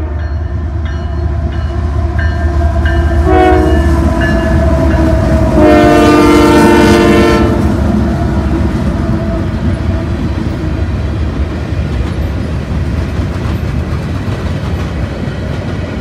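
Union Pacific diesel freight locomotives blowing their air horn for the grade crossing, a chord of several notes: a short blast about three seconds in, then a longer, louder blast around six seconds. The locomotives pass close with a heavy rumble, and from about eight seconds the freight cars roll by with a steady clickety-clack of wheels on rail.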